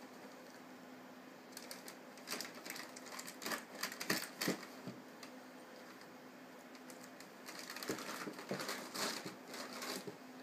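Plastic bag crinkling as a cat works at it, in two bouts of quick, irregular crackles about two to five seconds in and again around eight to ten seconds. A steady low hum runs underneath.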